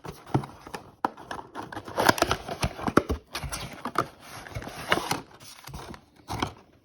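Trading-card packs and their cardboard blaster box being handled: irregular crinkling of foil wrappers and light taps and clicks.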